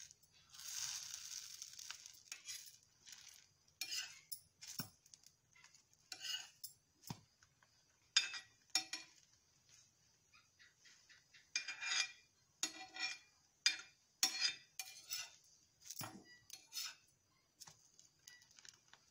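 Metal spatula scraping and clinking on a dosa tawa while egg-coated bread fries in ghee. There is a burst of sizzling about half a second in, as the bread is turned over, then irregular scrapes and taps.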